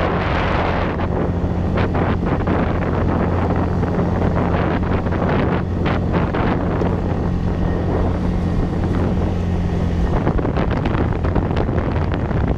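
6 hp outboard motor running steadily at a constant pitch, pushing an inflatable boat along, with wind buffeting the microphone and water splashing against the hull.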